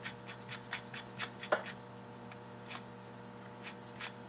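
Small metal parts of a Kerzel model engine's valve train clicking and ticking irregularly as they are handled and turned by hand, with one sharper click about a second and a half in. A steady faint hum runs underneath.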